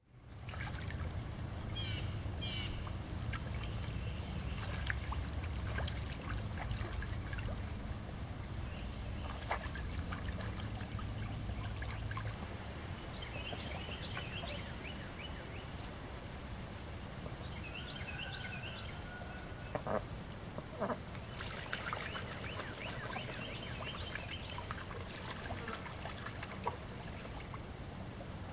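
Pond ambience of ducks and small birds calling in short chirp series now and then, over a steady low rumble that is heaviest in the first half. A few sharp clicks come near the middle, and a brighter hiss of moving water starts about three quarters of the way in.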